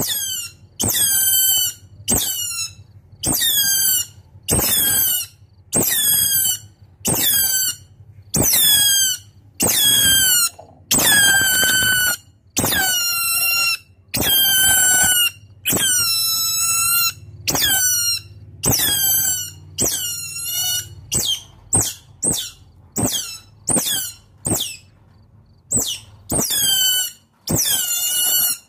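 Otter calling: a long series of high-pitched squeaks, each sliding down in pitch, about one a second, turning into shorter, quicker squeaks about two-thirds of the way through. It is the calling of an otter summoning its companions.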